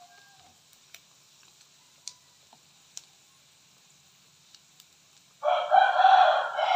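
A rooster crows once, a long loud call beginning about five and a half seconds in. Before it there is only a faint hiss of pork belly frying in oil in a wok, with a few light clicks of chopsticks against the pan.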